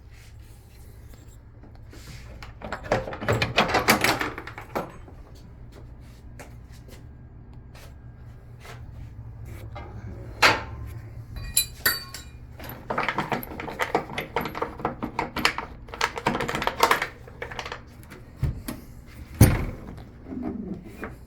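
Rubbing, scraping and knocking from hands and the camera moving against the carpet-covered interior panels of a HMMWV cabin. The noise comes in several bursts with a few sharp knocks, over a steady low hum.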